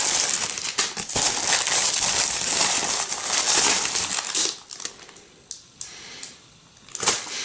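Black plastic mailer bag crinkling and rustling with many sharp crackles as a pair of sneakers is pulled out of it. About four and a half seconds in the rustling drops off to a few faint clicks, then flares briefly again near the end.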